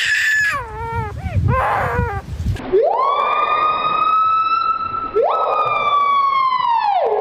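Hornbill calling in quick rising-and-falling notes, several a second, for about two and a half seconds. Then comes a long siren-like wail, twice: each starts with a fast rise and is held, and the second sinks slowly and drops to a lower tone at the end.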